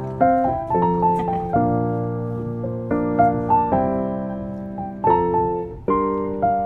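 Piano music: chords struck about once a second, each fading before the next.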